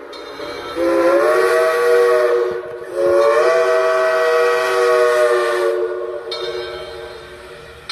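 Steam locomotive whistle blown twice, a shorter blast and then a longer one. Each blast is a chord of several notes that slides up in pitch as it opens. The second blast dies away slowly.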